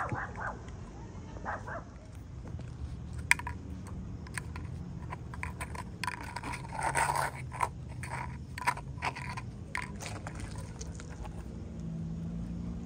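A small puppy chewing and biting a small cup, with irregular crunching and crackling and the cup scraping on asphalt, busiest in the middle, over a low steady background rumble.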